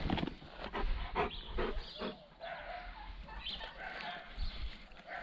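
A dog close by taking food from a hand and eating it: a handful of short mouth and snuffling sounds in the first two seconds or so, then quieter.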